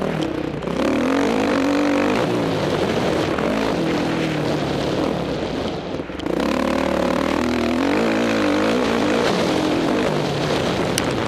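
Dirt bike engine revving up and down with the throttle as it is ridden around a motocross track, picked up by the rider's onboard camera. The throttle is briefly shut off about six seconds in, then opened again.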